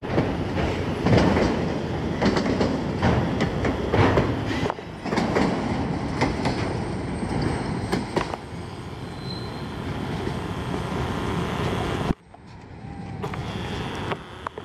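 Freight train of CSX autorack cars rolling past close by, its steel wheels clicking rhythmically over rail joints, with wind buffeting the microphone. About twelve seconds in the sound drops suddenly and stays quieter as the last cars move away.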